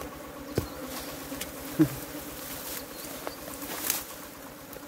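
Honeybees buzzing around their exposed underground comb nest, a steady low hum with a few sharp clicks.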